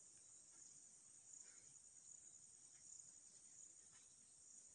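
Near silence, apart from a faint, steady, high-pitched insect trill.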